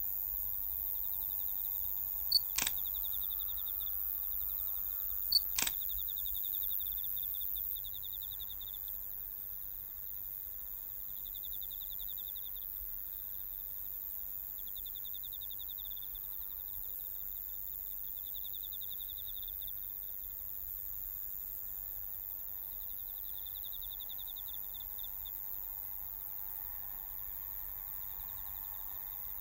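Camera shutter clicking twice, about three seconds apart in the first six seconds, each a sharp click followed by a softer second one. Behind it, a steady outdoor background with an insect trilling in short pulsed bursts.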